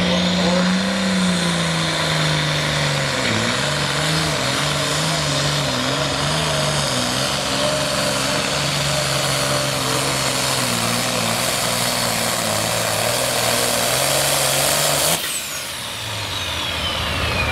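Turbocharged International Harvester hot stock pulling tractor's diesel engine running wide open under the load of the sled, its pitch sagging and wavering as it lugs, with a loud turbo hiss over it. About fifteen seconds in the throttle is let off: the engine drops away suddenly and the turbo whistle winds down.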